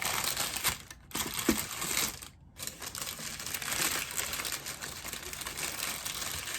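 Paper food wrapping crinkling and rustling as a sandwich is unwrapped and handled, in irregular spells with short pauses about a second in and again near two and a half seconds.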